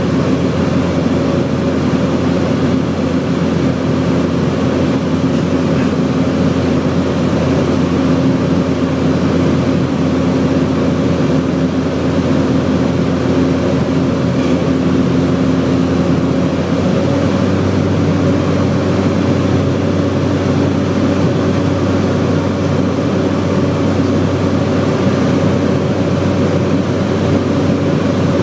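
Single Pratt & Whitney PT6A turboprop engine and propeller of a Cessna 208B Grand Caravan, droning steadily in flight, heard inside the cockpit. The tone of the drone shifts slightly about two-thirds of the way through.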